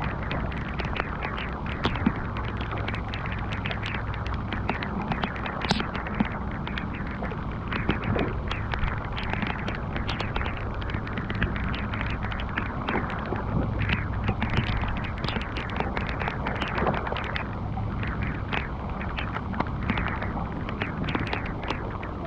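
Steady heavy rain falling on open water and a small boat, full of quick sharp ticks of drops, over a steady low rumble.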